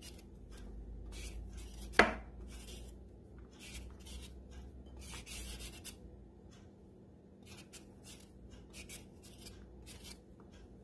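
Small knife shaving thin pieces off a raw carrot held in the hand, a run of short scraping strokes with a pause in the middle, and one sharp knock about two seconds in.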